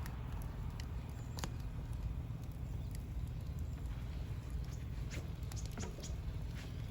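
Wood campfire crackling: a few sharp, scattered pops and clicks over a low steady rumble.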